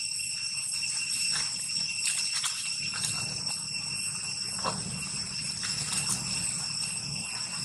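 A steady high-pitched drone of insects, holding several unchanging high tones, with light rustling and crackling of dry leaves underfoot.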